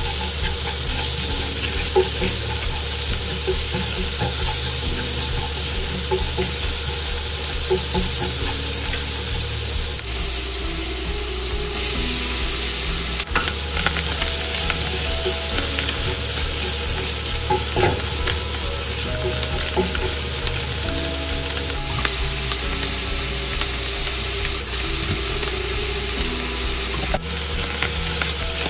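Minced onion, then sliced button mushrooms, sizzling and frying in butter and olive oil in an enamelled pan, stirred with a wooden spatula that scrapes and taps against the pan. The sizzle runs steadily, changing abruptly a few times.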